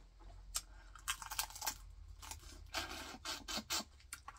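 Boiled crawfish shell being cracked and peeled by hand close to the microphone: a run of sharp snaps and crackling, scraping rustles, thickest in the middle.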